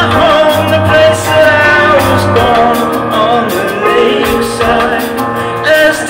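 Live band music: a man singing lead with a wavering melody over electric bass guitar and drums with cymbals.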